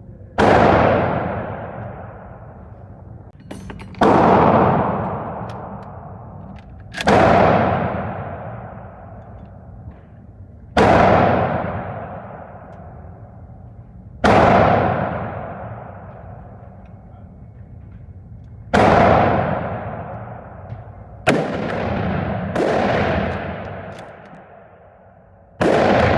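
Rifle shots at a shooting range, among them a Mannlicher-Carcano bolt-action rifle: about nine shots a few seconds apart, each ending in a long echoing decay, two of them little more than a second apart.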